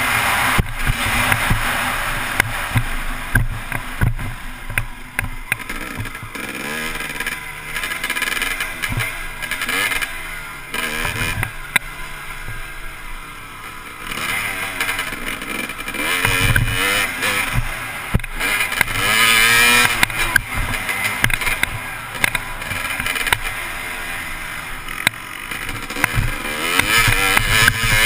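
Motocross dirt bike engine revving up and down as the rider throttles and shifts around the track, heard from a helmet-mounted camera with wind noise on the microphone. The engine eases off for a few seconds in the middle, around a corner, then pulls hard again.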